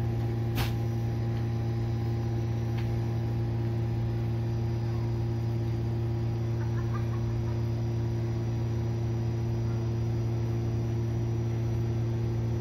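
A steady low machine hum with a few overtones, unchanging throughout, with a single sharp click about half a second in and faint bird calls now and then.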